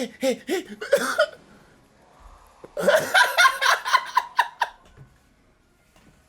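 Laughter in two bouts of quick repeated voiced pulses, the second longer, then it stops about two-thirds of the way through.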